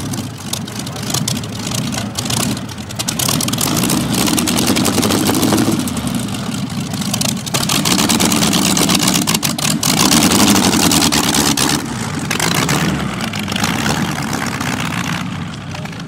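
Streamliner C-16's inline sixteen-cylinder engine, built from two Buick straight-eights joined end to end, running at idle and rising in revs several times, loudest about four and nine seconds in.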